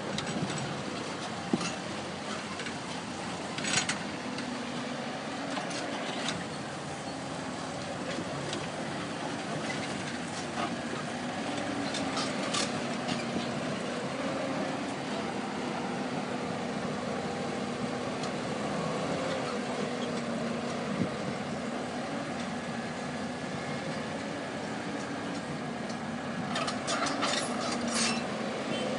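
Caterpillar tracked hydraulic excavator's diesel engine running steadily under load while it digs and loads a dump truck, its pitch drifting a little with the work. A few sharp knocks cut through, the loudest about a second and a half in and in a cluster near the end.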